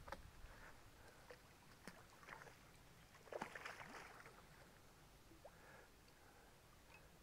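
Near silence with a few faint clicks and a brief soft splash of water about three and a half seconds in.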